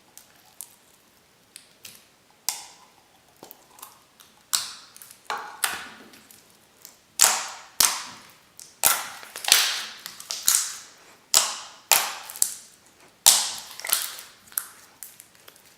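Foam-bead slime being squished and stretched by hand, giving off irregular loud crackling pops as trapped air bursts and the beads crunch. The pops come roughly one or two a second and grow louder from about four seconds in.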